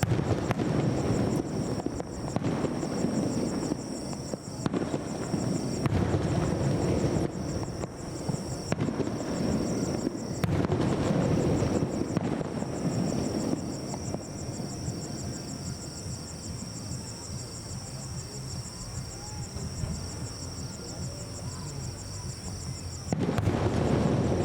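Aerial fireworks shells bursting in volleys, booming with crackle: one about a second in, another around six seconds, a longer run at about halfway, and a fresh volley near the end.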